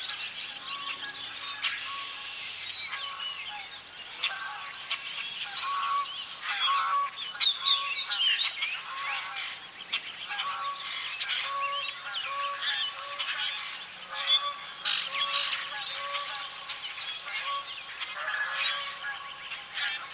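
Canada geese honking over and over, under a dense chorus of songbird calls and chatter.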